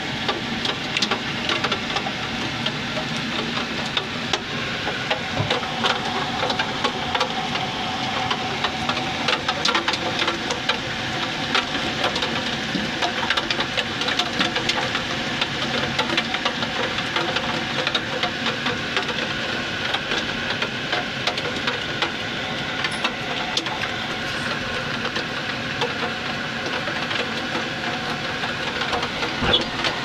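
Steady rain falling, with many close drops pattering and ticking at irregular intervals.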